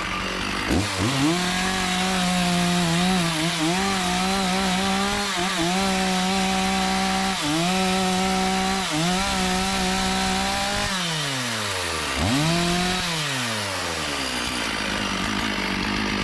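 Chainsaw revving up to full throttle about a second in and held there cutting through teak, its pitch dipping briefly several times as it bogs under load. Near the end it winds down, revs once more briefly, and drops away.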